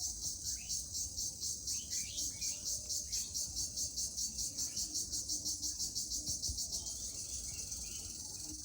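Cricket (jhijhi poka) chirping: a high, shrill trill pulsing evenly about five or six times a second, which runs into an unbroken buzz about seven seconds in. Short bird chirps sound faintly underneath.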